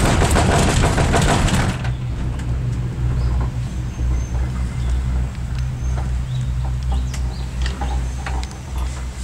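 Steady low hum and rumble of a cable car gondola travelling along its cable, heard from inside the cabin, with a louder rushing burst in the first two seconds. A few short high bird chirps come through from the forest below in the second half.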